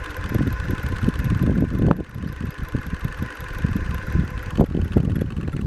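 Powabyke X24 e-bike's electric hub motor whining at a steady pitch under full throttle, with irregular low rumbling and thumps over it.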